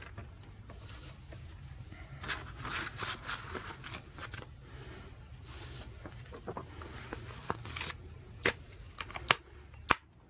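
Handling noise as a plastic DVD case, its disc and a paper insert are moved about: rustling and scraping, then a few sharp clicks near the end.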